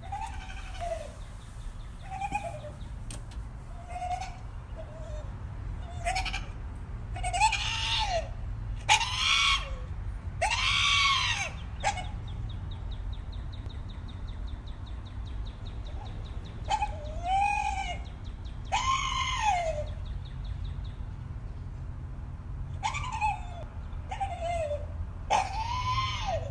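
A dog making strange, scream-like calls, each arching up and then down in pitch. The calls start small, then come as louder drawn-out screams in clusters with pauses between, over a steady low hum.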